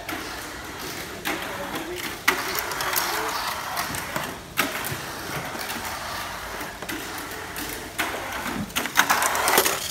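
Cyclone Magnum mini 4WD car whirring and rattling around a plastic track, with sharp knocks along the way and a quick cluster of them near the end.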